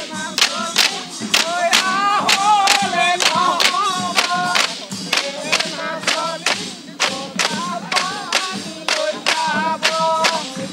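A group of men singing a Bihu song together over a steady beat of sharp bamboo clacks, about two or three a second, from thin bamboo sticks struck against a bamboo rail.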